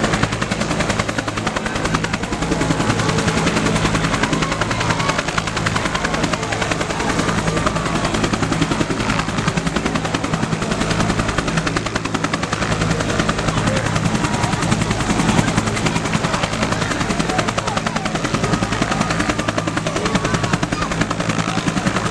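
Bell UH-1 Huey helicopter running close by, its rotor beating in a fast, steady chop over a constant turbine hum.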